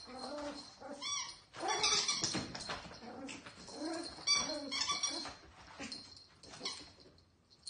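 Pacifier-shaped squeaky toy squeaking in quick bunches as a Yorkshire terrier puppy plays with it, mixed with the puppy's small growls and whines. The sounds thin out and grow quieter near the end.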